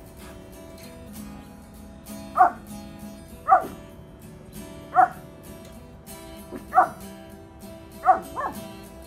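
Small dog barking: six sharp single barks, each dropping in pitch, one every second or so, the last two close together. Background music plays under them.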